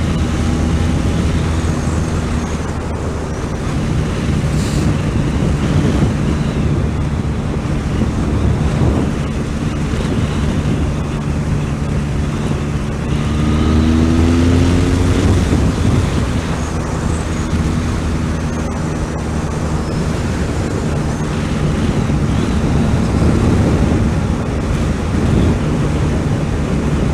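Motorcycle engine running at road speed, with heavy wind rush on the microphone. About halfway through, the engine note rises as the bike accelerates.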